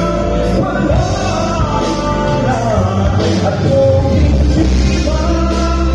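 A man singing live into a handheld microphone over recorded backing music, both amplified through PA speakers.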